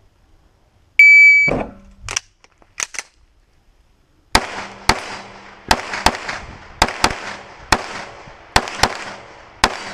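An electronic shot-timer beep, then a few clacks as the pistol is picked up from the barrel and loaded, then about ten pistol shots, mostly in quick pairs, over about five seconds.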